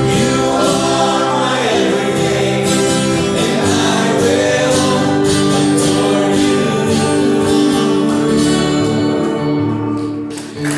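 Live gospel worship music: voices singing together over guitar and band, the song dying away just before the end.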